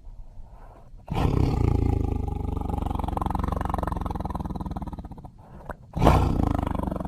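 A tiger roaring: a faint low rumble, then a long roar of about four seconds that fades away. After a brief pause, a second, sharper roar breaks out near the end.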